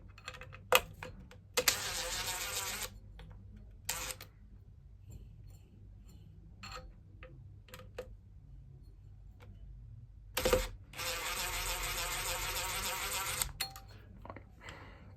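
Cordless drill-driver whining in two bursts, a short one about two seconds in and a longer one near the end, working the screws on a vacuum motor's carbon-brush holders. Sharp clicks and knocks of tools and parts come in between.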